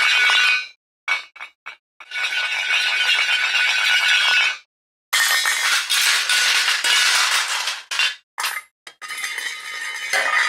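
A series of separate crashes of dropped metal plates, pans and silverware clattering and jangling, each with a ringing metallic tone. Three long clattering crashes, the middle one the loudest and densest, are broken up by a few short clinks and by sudden dead silence between takes.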